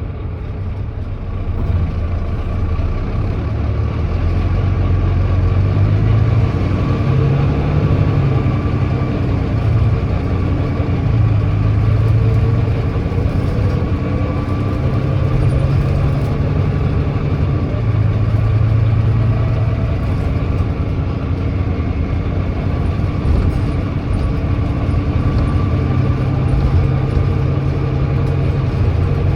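Volvo D9B six-cylinder diesel of a Volvo B9TL double-decker bus running under way, heard from on board. The low engine note swells and eases every few seconds.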